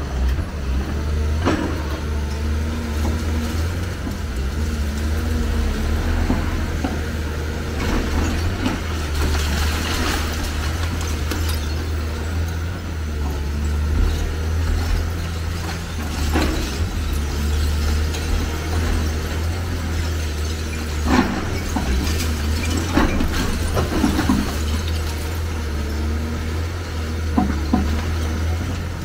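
Hyundai crawler excavator's diesel engine running steadily under load as it pulls down a concrete building, with crashes and clattering of concrete rubble breaking and falling at intervals, the loudest about 21 seconds in.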